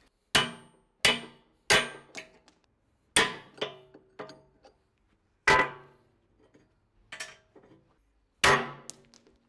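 Hammer striking a steel punch held in vice grips to drive the retaining pin out of an excavator bucket tooth: six hard metal-on-metal blows at uneven intervals, each ringing briefly, with a few lighter knocks between them.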